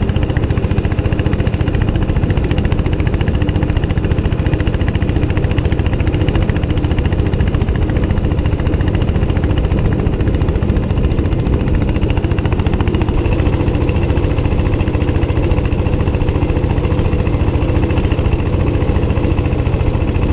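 Long-tail boat's engine running steadily under way, a loud, even hum with a fast, dense beat, as the boat travels across the lake.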